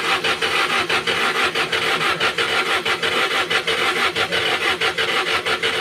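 Volkswagen Beetle's starter motor cranking the air-cooled flat-four in a rapid, even pulse without the engine catching, then cutting off abruptly just after the end. It is a no-start while the ignition contact points are being adjusted.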